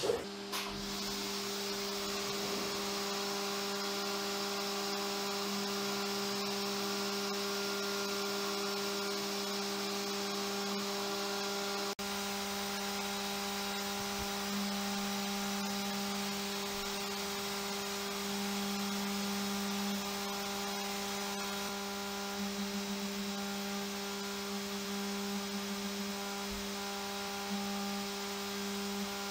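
Haas CNC mill spindle driving a small end mill through an adaptive roughing pass, cutting a pocket in a knife blade blank. It makes a steady hum with a steady hiss above it, and the tone wavers slightly near the end as the load on the cutter changes.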